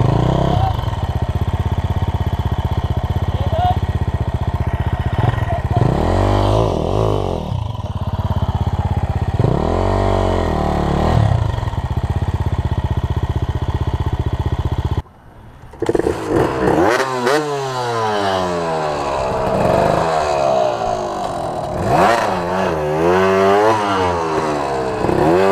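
Dirt bike engine running under load on a rocky climb, revving up twice. About fifteen seconds in the sound drops out for a moment, then a dirt bike's engine is revved up and down repeatedly in quick swells.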